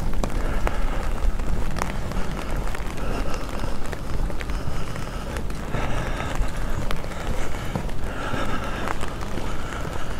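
Walking outdoors on a city street: footsteps and small clicks over a steady low rumble of wind on the microphone, with a faint background haze of city noise.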